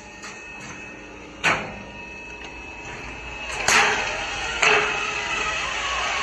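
Steel C purlin roll forming machine clanking over a low hum: one sharp knock about a second and a half in, then two louder knocks near four and four and a half seconds, each ringing briefly.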